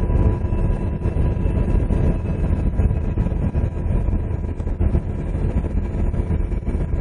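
UH-60 Black Hawk helicopter in flight, heard from inside: a steady, deep drone of rotor and turbine noise with a faint steady whine above it.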